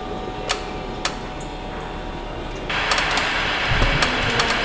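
A few light metallic clicks as Cleco fasteners are handled in an aluminium aircraft frame, then a steady hiss starts abruptly a little over halfway through.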